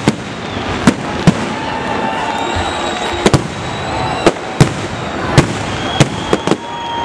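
Aerial fireworks shells bursting: about ten sharp bangs at uneven intervals over a continuous crackling hiss, with long steady whistling tones between them.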